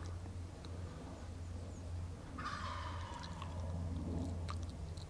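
Wild turkey gobbler gobbling once, a short rapid rattle lasting under a second about two and a half seconds in.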